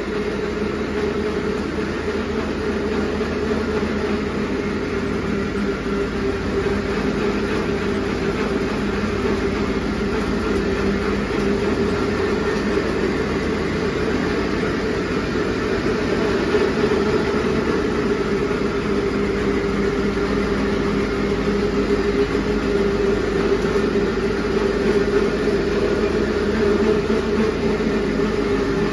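Tractor-driven flour mill and oil expeller running together: the diesel tractor engine and the belt-driven grinding machinery make a loud, steady drone with a strong hum.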